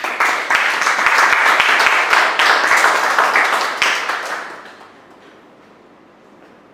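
A small audience applauding: the clapping starts suddenly and fades away after about four seconds.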